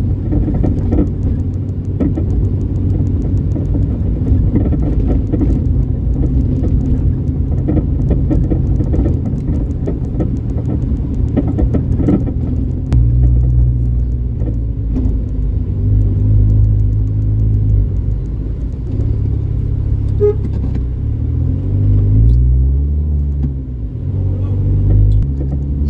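Car engine and road rumble heard from inside the moving car's cabin. The engine note rises and falls several times near the end as the car speeds up and slows.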